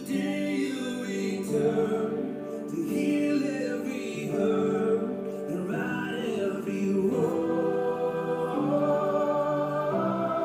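Slow church music: voices singing over sustained chords.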